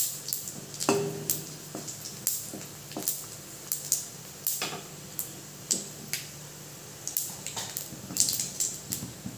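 Panch phoron seeds and dried red chillies frying in hot mustard oil in a steel kadai. The seeds crackle and pop at irregular moments, a sharp click now and then over a faint low hum.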